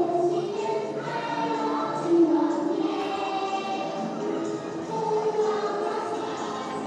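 Children's choir singing a Christmas song with musical accompaniment, in held notes that move from pitch to pitch.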